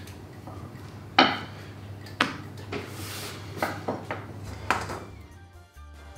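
A rolling pin knocking and rolling on a floured countertop as dough is rolled out: four sharp knocks about a second apart.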